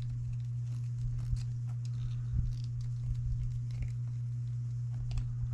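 Light clicks and scrapes of a small screw being started into a beadlock wheel ring by hand tool, scattered and faint, over a steady low hum.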